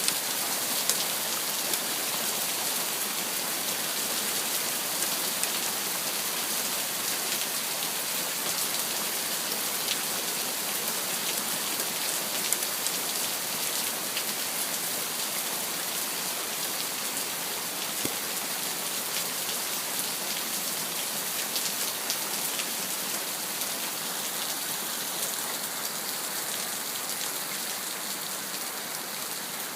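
Heavy rain pouring steadily, with scattered sharp ticks of drops striking hard surfaces.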